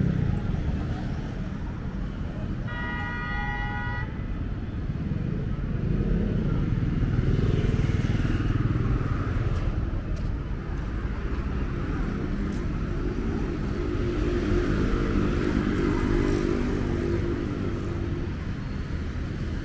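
Busy road traffic of motorcycles and cars running past. About three seconds in, one vehicle horn sounds a single blast of just over a second. In the second half, a passing engine hums at a steady pitch for several seconds.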